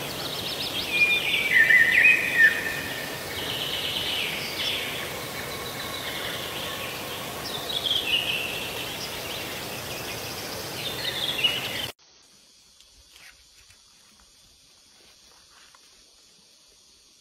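Birds calling in short gliding notes over a steady noisy outdoor background. The sound cuts off abruptly about twelve seconds in, leaving only a faint hiss.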